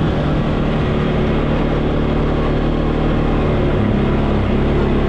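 Four-wheeler (ATV) engine running steadily while riding, with a slight change in engine pitch near the end.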